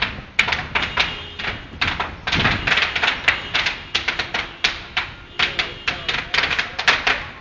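Large open fire crackling and popping: dense, irregular sharp snaps coming in uneven clusters several times a second.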